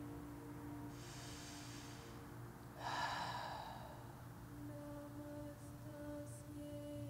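Soft background music of held tones, with a shift in pitch about five seconds in. Over it come an audible breath in about a second in and a louder breath out about three seconds in.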